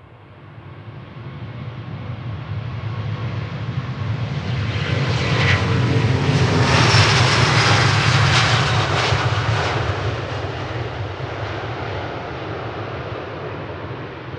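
Airbus A350-900's Rolls-Royce Trent XWB jet engines at takeoff power as the airliner passes, a deep rumble and rushing roar that builds for several seconds, peaks about halfway, then fades away. A faint whine drops in pitch as it goes by.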